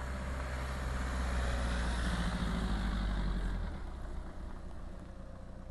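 Volkswagen van's engine running as it drives slowly down a gravel track, a steady low drone that fades away after about three and a half seconds.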